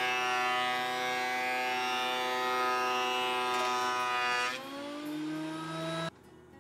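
Benchtop thickness planer running with a steady, many-toned motor whine; about four and a half seconds in the pitch shifts and the sound drops, then it stops abruptly about six seconds in.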